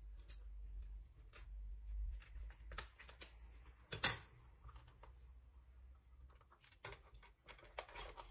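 Plastic pouch of chocolate glaze being handled and opened by hand: scattered crinkles and small clicks, with one sharp, louder crackle about four seconds in.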